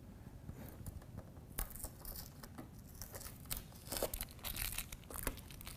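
Packing tape and protective plastic film being peeled off the plastic front of a new window air conditioner: a run of irregular rips and crinkles, starting about a second and a half in.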